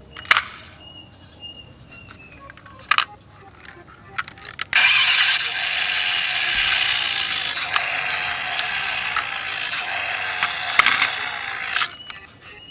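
A few sharp plastic clicks, then about seven seconds of a steady, rattling whir from a toy vehicle's mechanism that cuts off abruptly.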